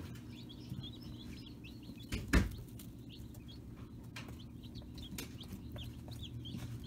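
Dozens of newly hatched chicks peeping all at once, many short, high, falling cheeps overlapping continuously. A single loud thump about two seconds in is the loudest sound.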